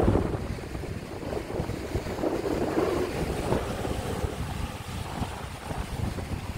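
Wind buffeting the microphone, a fluctuating low rumble, over the wash of rough surf.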